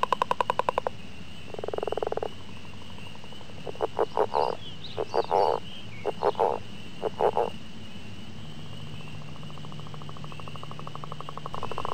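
Frogs calling: a string of short, rapid pulsing calls, bunched in the first seven or so seconds and then stopping, over a steady high-pitched drone.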